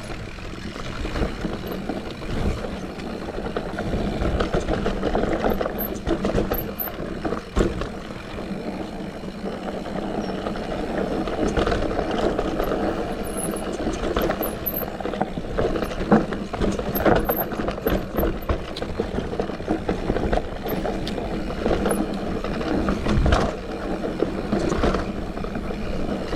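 Santa Cruz Heckler mountain bike riding down a dirt forest trail: steady tyre noise over the ground, with frequent knocks and rattles from the bike over bumps.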